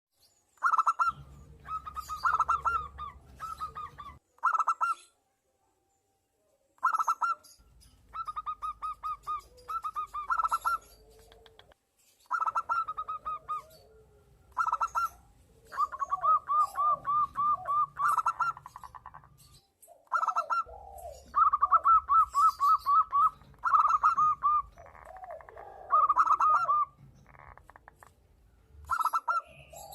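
Zebra doves cooing: phrases of quick staccato notes repeat every second or two, answered at times by a lower, wavering call from a second bird. There is a short pause about five seconds in.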